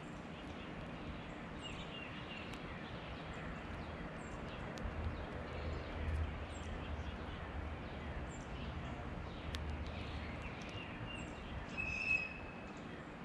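A slate-colored dark-eyed junco pecking seed on a painted wooden post top, its beak giving light scattered clicks, with short high bird chirps now and then, the clearest near the end. A low background rumble comes in about five seconds in.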